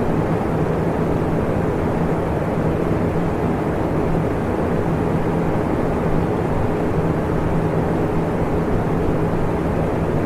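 Electric fan running steadily: an even rush of air with a low hum underneath.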